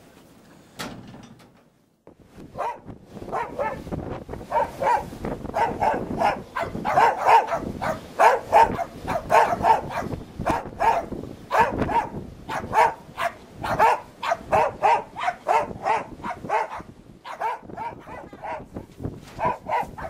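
A dog barking over and over, about two barks a second, starting about two seconds in.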